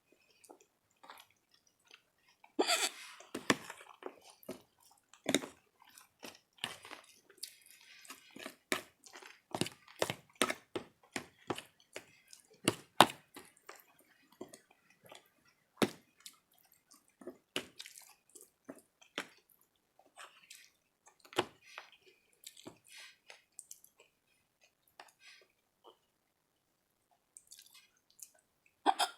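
Close-miked chewing: wet, smacking mouth clicks, irregular and a few a second, with a louder stretch of noisy chewing about three seconds in.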